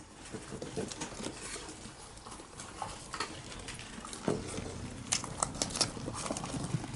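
Syrian hamsters scrabbling and moving about on newspaper bedding: a run of small irregular clicks and paper rustles, busiest in the second half.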